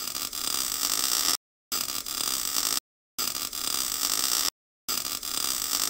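Hissing, crackling noise sound effect in four bursts of a second or so each, every burst cutting off abruptly with a short dead silence between.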